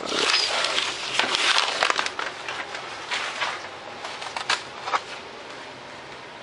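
Thin strips of paper-faced foam board crinkling and rustling as they are gathered up by hand, dense at first. After that come a few short scratches and clicks of a hobby knife working in the foam board.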